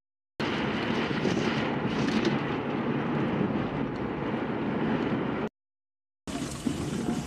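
Steady road and engine noise inside a moving car's cabin, cutting out completely at the very start and again for under a second about five and a half seconds in.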